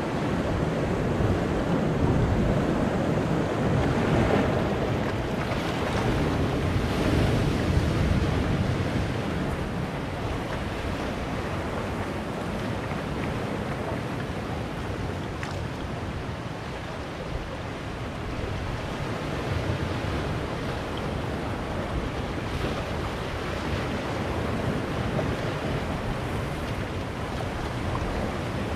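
Sea waves washing in among boulders on a rocky shore: a continuous rush of surf, with several louder surges in the first eight seconds or so, then a steadier wash.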